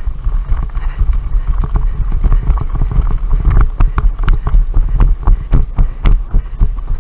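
A player running hard, his footsteps thudding about three times a second on a body-worn camera's microphone, with wind buffeting the mic; sharper clicks join in over the second half.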